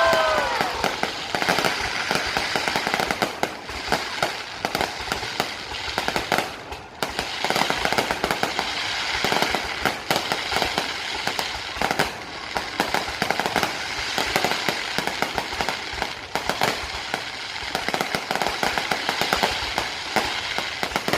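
Aerial fireworks going off in a dense, continuous barrage of crackling and popping bangs.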